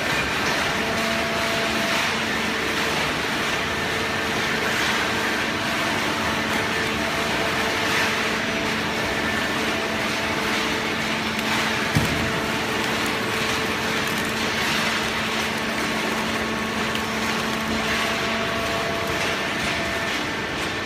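Fully automatic horizontal hydraulic baler running: a steady industrial machine hum with several held tones that drop in and out, and one sharp knock about twelve seconds in.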